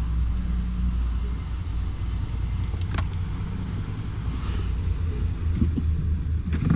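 Truck engine idling with a steady, low running sound.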